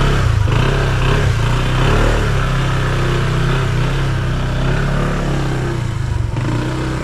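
Motorcycle engines running as the riders pull away and ride off, a steady, even engine note.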